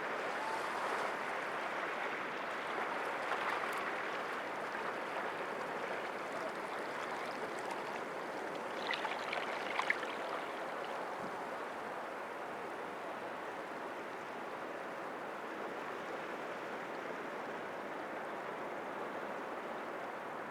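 Sea waves washing steadily against rocks, a continuous surf wash that swells slightly in the first few seconds. A few short sharp ticks stand out about nine to ten seconds in.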